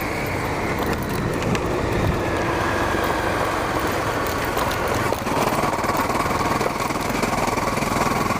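Honda CRF250L dirt bike's single-cylinder four-stroke engine running steadily while being ridden.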